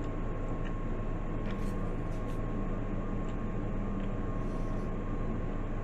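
Steady background hiss and low hum with a faint constant tone, no distinct events.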